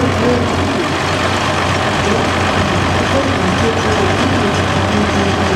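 1968 International 656 Hydro Hi-Crop tractor's six-cylinder diesel engine running steadily.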